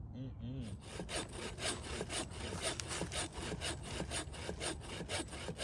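Hand saw cutting through a piece of wood in quick, even back-and-forth strokes, starting about a second in. The wood is wet and rotted ('punky').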